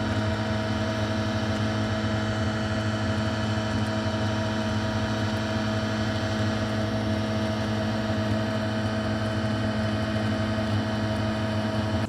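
Small pony pump running steadily with a constant hum, circulating descaling solution through a combi boiler's scaled-up heat exchanger.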